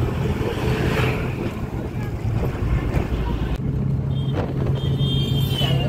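Engine and road noise of a moving vehicle, with wind buffeting the microphone. About three and a half seconds in the sound changes abruptly to a steadier low engine hum, with a thin high tone over it near the end.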